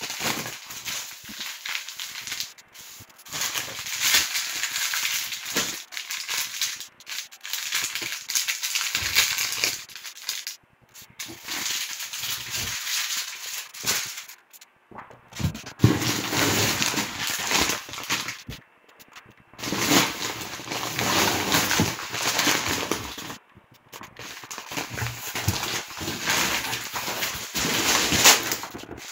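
Plastic food packaging crinkling and rustling against a cardboard box as bags of rice and salt are handled and lifted out. It comes in crackly bouts of a few seconds, with short pauses between them.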